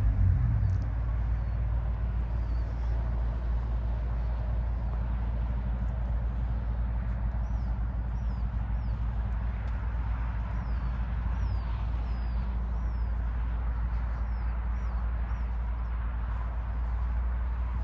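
Steady low drone of vehicle engine and road noise, running evenly throughout, with faint short high chirps through the middle.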